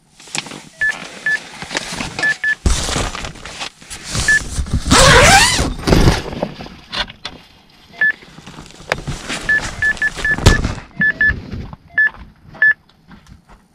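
Electronic carp bite alarm giving short single beeps at irregular intervals, in a quick run of several about ten seconds in: a drop-back bite. Loud rustling and scraping, heaviest about four to six seconds in, runs under the beeps.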